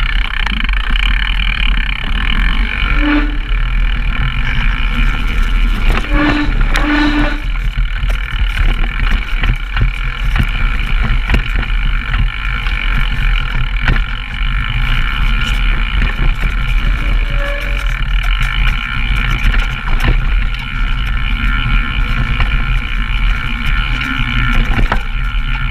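Mountain bike descending a downhill trail: a steady rush of wind and rumble, with the bike rattling and clicking over the rough ground.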